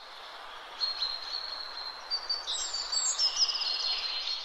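Birds chirping and singing over a steady hiss of outdoor ambience, with short high chirps and a quick trill, fading out at the end.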